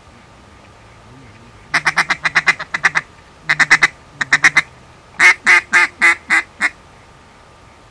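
Duck call blown by a hunter, sounding series of quacks: a fast run of about a dozen short notes, two shorter bursts, then six louder, slower quacks.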